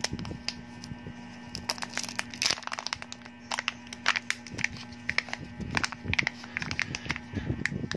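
Foil seal of a Kinder Joy egg being peeled back and crumpled, crinkling and crackling, with small clicks of its plastic casing being handled.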